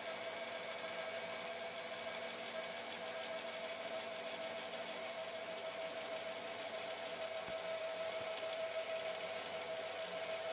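Makita LB1200F band saw running and slowly ripping a softwood board along the fence. A steady whir with a constant mid-pitched tone and a fainter high one over an even hiss of the blade cutting.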